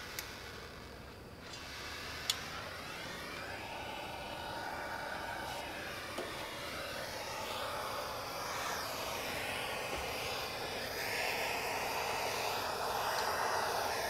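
Handheld propane torch burning with a steady hiss, growing louder toward the end, its flame held on a puddle of diesel in a metal dustpan that has not yet caught. A single sharp click about two seconds in.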